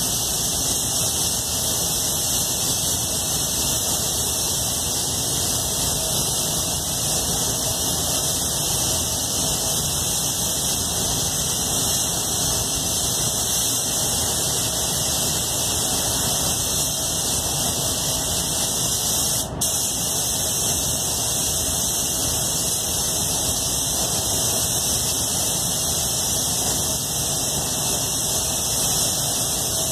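Iwata Supernova spray gun hissing steadily as compressed air atomises clear coat, with a brief break about two-thirds of the way through.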